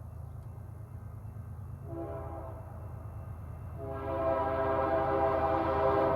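Diesel locomotive's multi-chime air horn blowing for the grade crossing: a short blast about two seconds in, then a long blast from about four seconds in that grows louder, over a steady low rumble from the approaching train.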